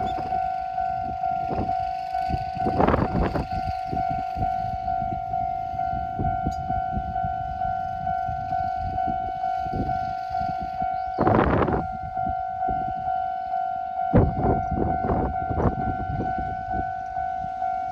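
Level-crossing warning bell ringing steadily with a repeating tone, about two to three strikes a second. Under it a train runs through on the narrow-gauge Hokusei Line, its wheels rumbling and clacking, with a louder rush twice.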